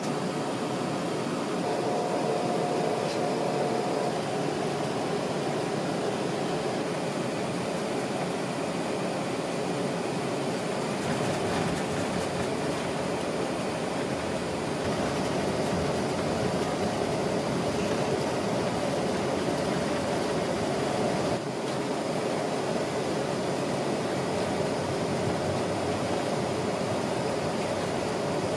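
Steady jet airliner cabin noise while taxiing, the hum of the engines and the air conditioning heard from inside the cabin, with a faint steady whine.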